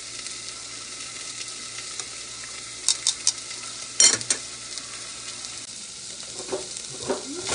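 Steady hissing bubble of a pot of spaghetti boiling on the stove. There are three short clicks about three seconds in and a louder knock about a second later.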